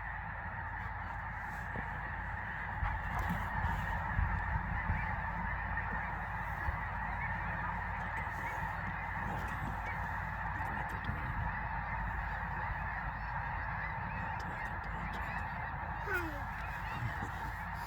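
A large flock of migrating geese honking continuously, many overlapping calls blending into a dense, steady chorus.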